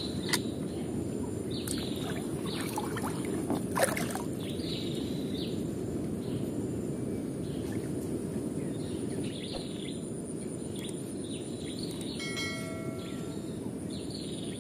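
Outdoor ambience: birds chirping again and again over a steady low rumble, with two sharp clicks, one just after the start and one about four seconds in.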